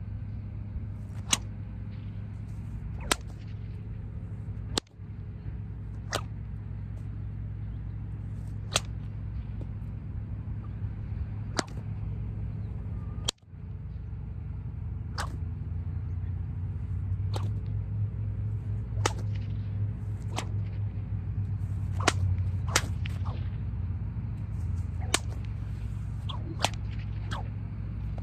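A brand-new 10-foot Indiana Jones-style bullwhip from Maloroy Whip Co. cracking over and over: more than a dozen sharp cracks, mostly a couple of seconds apart and coming quicker near the end. The whip is still stiff and not yet broken in.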